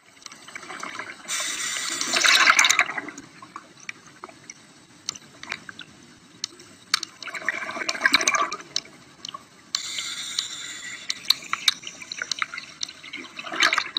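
Underwater sound of scuba breathing: bursts of exhaled regulator bubbles rush and gurgle every few seconds, with scattered sharp clicks in between.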